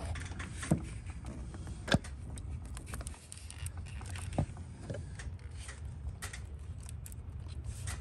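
Scattered light metallic clicks and taps, the sharpest about two seconds in, as a hand works the loose rocker arm of cylinder 7 in a Chevy 5.3 V8's open valve train. The rocker is loose because its AFM lifter has collapsed.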